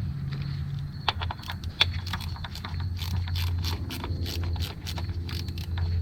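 Small ratchet clicking as the ignition-coil hold-down bolts are tightened, in quick runs of sharp clicks starting about a second in, over a steady low hum.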